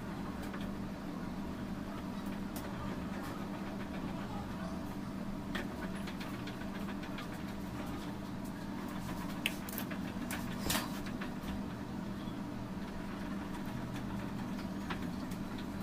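A steady low mechanical hum with a few faint, sharp clicks and taps scattered through it.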